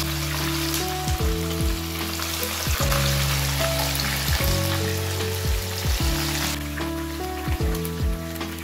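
Chicken pieces sizzling steadily as they shallow-fry in hot oil in a nonstick pan. Background music with sustained low notes plays along.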